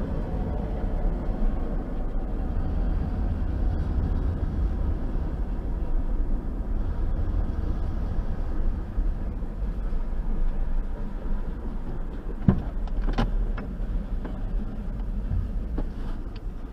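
Low, steady rumble of a freight train passing a road crossing, heard from inside a car, with a couple of sharp clicks about twelve and thirteen seconds in.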